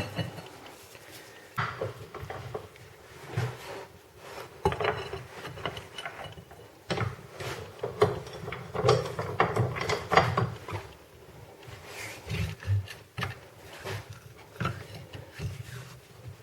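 Bench vise pressing a rubber-and-metal silent block into a suspension arm's eye: irregular creaking, scraping and metal knocks as the bushing is forced in, with a few sharper clunks.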